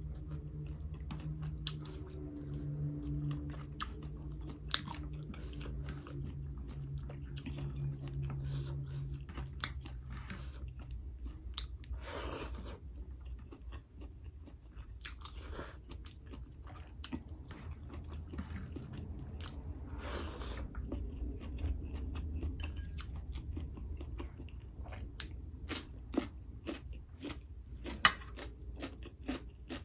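Close-up eating sounds of a person eating rice and meat by hand: chewing with wet mouth clicks and smacks and occasional crunches. There are a couple of longer, breathier mouth sounds about twelve and twenty seconds in, and a low steady hum in the background during the first third.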